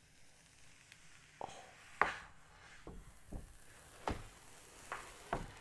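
Faint, scattered crackles and rustles of the paper-like protective wrap being peeled off a new iMac's screen, about half a dozen soft ticks spread over a few seconds.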